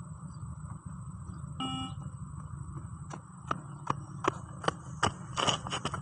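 One short electronic beep from the beep test audio about a second and a half in, marking the shuttle interval. From about halfway, running footsteps on concrete come in about two and a half a second and grow louder as the runner nears, with a quick flurry of steps near the end as he turns. A steady low rumble underlies it.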